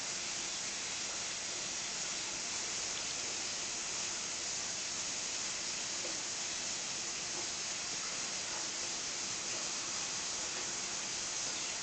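Steady hiss of room tone and recording noise, unchanging throughout, with no distinct sound event.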